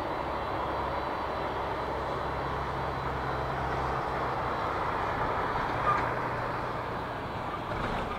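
The four Rolls-Royce Trent 500 turbofans of an Airbus A340-600 running steadily, an even jet hiss with a low hum under it. A short sharp click sounds about six seconds in.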